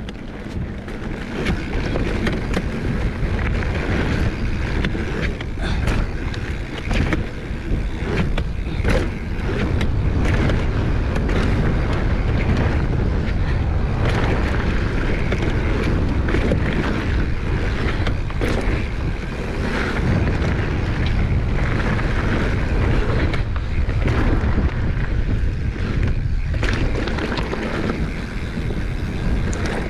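Mountain bike descending a dirt trail: wind rushing over the microphone and tyres rumbling over dirt and gravel, with frequent short clicks and knocks as the bike rattles over bumps.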